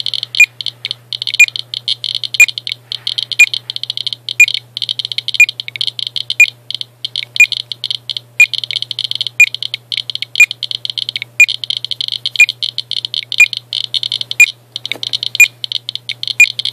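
Geiger counter clicking rapidly in a dense crackle from the radioactivity of uranium-doped Vaseline glass, with a sharper beep about once a second from a counter's alarm at the high count rate.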